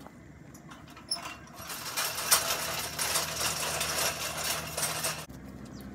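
Dense crackling rustle with rapid, irregular clicks, starting about a second in and cutting off abruptly near the end.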